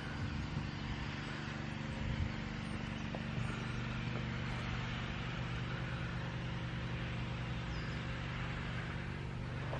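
A machine running with a steady low hum, growing a little fuller about three seconds in.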